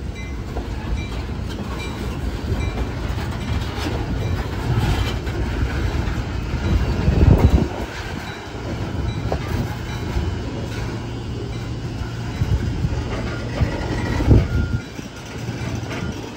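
Loaded freight hopper cars rolling past, a steady low rumble with wheels knocking over the rail joints and two heavier clunks, about seven and fourteen seconds in.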